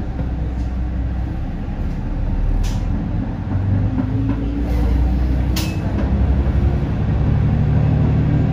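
Diesel railcar's engine rumbling and revving up as the train pulls away, its pitch rising slowly and the rumble growing louder. Two brief sharp hisses cut through, about a third of the way in and again about two-thirds in.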